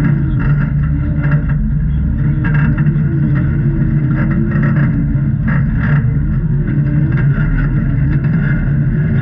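Off-road vehicle's engine running steadily at low speed, with a tone that wavers up and down and scattered short knocks and clatter.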